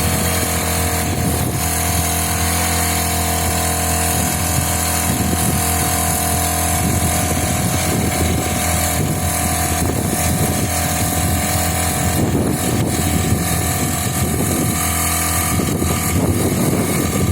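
Honda GX35 single-cylinder four-stroke engine on a rice-paddy power weeder, running steadily at an even speed.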